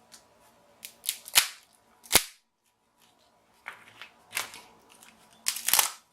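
King crab leg shells cracking and snapping as they are cut open with scissors: a string of sharp, irregular cracks, the loudest about a second and two seconds in, with another cluster near the end.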